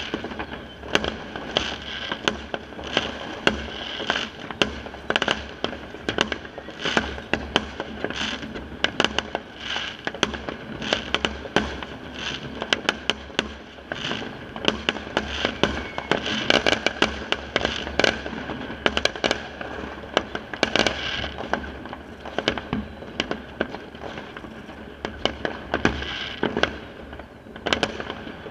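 Fireworks going off all around a neighbourhood: a continuous barrage of bangs with no break, a few loud and sharp, many fainter and further off.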